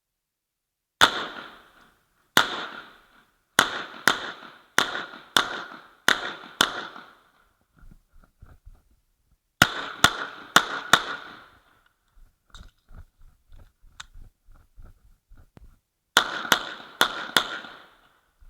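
Uzi Pro pistol (9 mm) fired in quick strings: eight shots about half a second apart starting a second in, then four more near the middle and four near the end. Each shot is followed by a short echo tail, with faint knocks between the strings.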